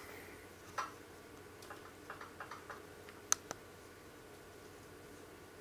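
Faint, scattered light clicks of controls being worked while the camera's ISO is turned down: a few around the middle and one sharper click about three seconds in. A steady faint hum runs underneath.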